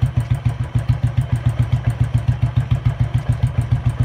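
Royal Enfield Thunderbird's single-cylinder four-stroke engine idling with a steady, even beat of roughly five to six pulses a second.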